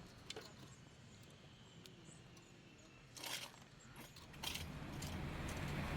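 A few faint scattered clicks and clinks, then a low rumbling noise that swells up over the last second and a half.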